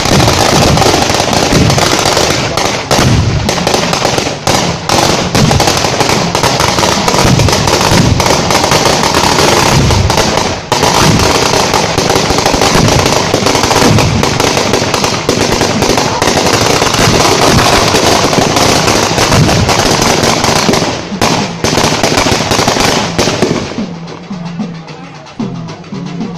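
A long string of firecrackers going off in a loud, rapid, continuous crackle of bangs, which stops about 23 seconds in.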